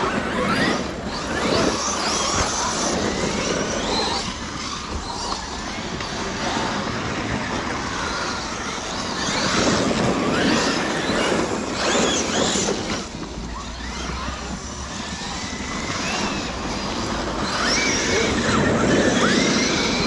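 Brushless electric RC cars driving hard over forest ground: motor and drivetrain whine rising and falling with repeated bursts of throttle, over a rough, steady rush of tyres on dirt and debris.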